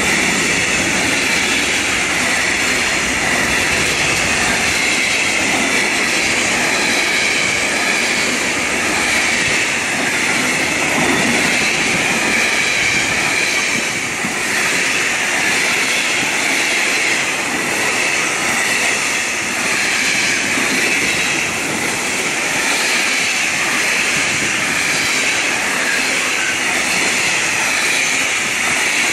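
Container wagons of a freight train rolling past at speed: a steady rush of wheel and rail noise with a constant high hiss, no let-up as wagon after wagon goes by.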